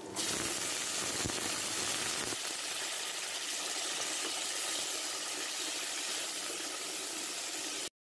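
Onions, green peas and chopped green chillies sizzling in hot oil in a wok: a loud, steady hiss that starts suddenly and cuts off suddenly near the end.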